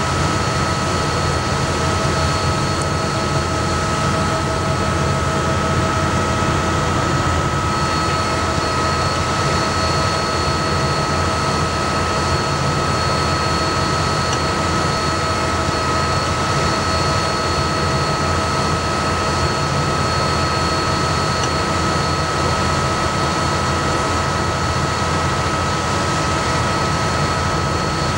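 Combine harvester running steadily at a constant speed, a low engine drone with a steady high-pitched whine over it.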